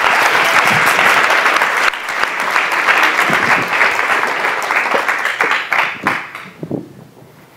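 Audience applauding: dense, steady clapping that dies away near the end, with a few last scattered claps.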